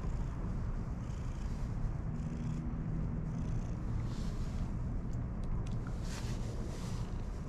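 Cat purring steadily while being stroked on the head.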